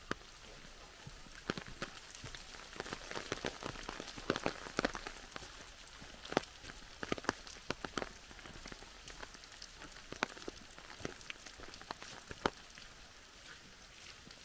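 Rain falling on a forest: a steady patter with many sharp, irregular drips of large drops striking close by, busiest in the first half and thinning out toward the end.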